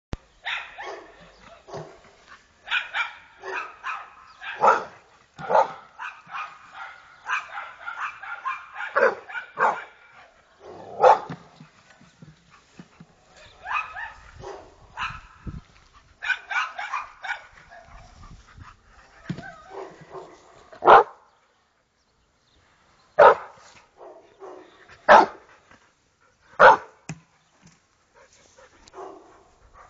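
American Staffordshire terrier barking and yipping in a fast, dense run for the first third, then in short clusters, then single sharp barks about every two seconds.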